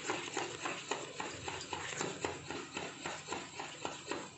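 Spoon stirring thick cake batter in a stainless-steel bowl: a quick, even run of taps and scrapes against the bowl, about four a second.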